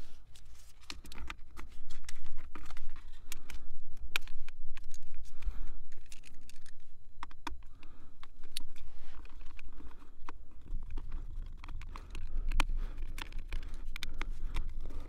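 Irregular small clicks, taps and scrapes as a laptop battery pack is set into an open laptop chassis and its screws are started with a small screwdriver.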